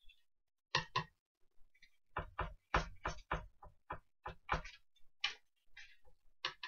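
A foam ink-blending tool dabbed over and over onto a paper journal page: a quick run of dull taps, about two to three a second, starting about a second in.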